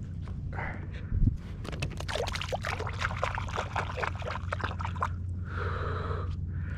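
Water splashing and trickling beside a kayak, in a dense run of quick splashes and drips, after a single hollow thump about a second in.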